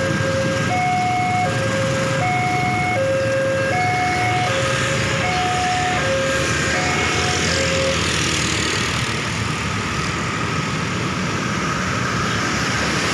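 Railway level-crossing warning alarm: an electronic two-tone signal alternating high and low, each tone just under a second long, which stops about eight seconds in as the barriers go up. Motorcycle and car traffic runs across the crossing throughout.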